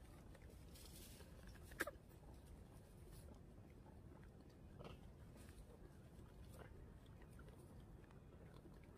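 Near silence: faint low background rumble with a few soft ticks and one sharp click about two seconds in.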